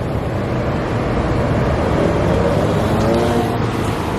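City street traffic: a steady rumble of passing cars, with an engine note rising and falling in the second half.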